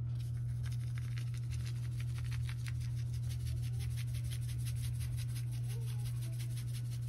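A seasoning salt shaker being shaken over a fish fillet, the grains rattling in a quick run of light ticks. A steady low hum lies under it.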